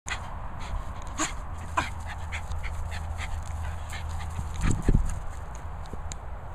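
Small chug dog (chihuahua-pug cross) giving a couple of short, high yelps while playing, over a steady low rumble and scattered rustles and clicks. A loud low double bump comes just before five seconds in.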